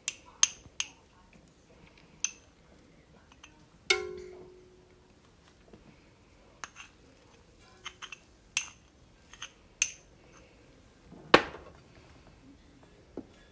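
A metal spoon tapping and clinking against a stainless steel bread machine pan while ingredients go in: about a dozen sharp, separate taps. One about four seconds in leaves a short ringing tone from the pan, and the loudest comes near the end as butter is knocked off the spoon.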